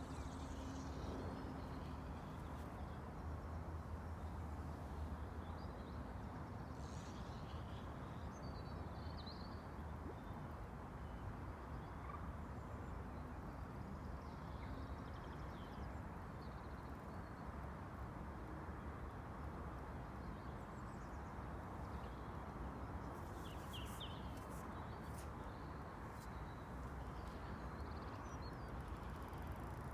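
Steady outdoor background noise with short bird calls scattered through it, and a few brief clicks about three-quarters of the way in.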